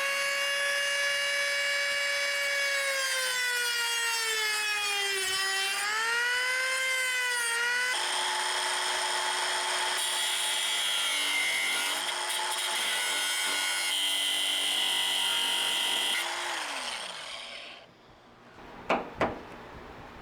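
Dremel rotary tool cutting into welds: a high whine that sags in pitch as it bears down and recovers, turning to a rougher grinding about eight seconds in. It winds down near the end, followed by two sharp knocks.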